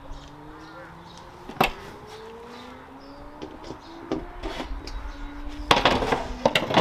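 A large wooden panel being handled on a trestle table: a single sharp knock, then a quick run of knocks and clatter near the end as the board is laid flat and a cordless drill is picked up. A faint hum rising slowly in pitch underneath.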